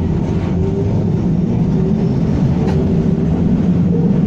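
W6 class tram running, heard from on board: a steady low rumble of the wheels on the rails, with one sharp click about two and a half seconds in.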